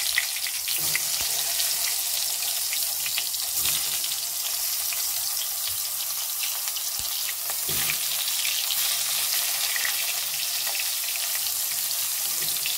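Eggplant slices coated in oil and turmeric frying in a kadai: a steady sizzle with many small crackles.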